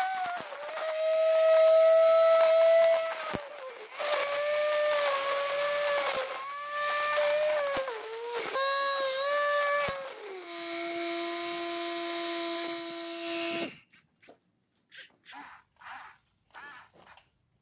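High-current DC motor spinning a fishing-line grass cutter, whining at a high pitch that sags and recovers again and again as the line bites into grass. It then holds a lower steady pitch for a few seconds before cutting off suddenly about 14 seconds in.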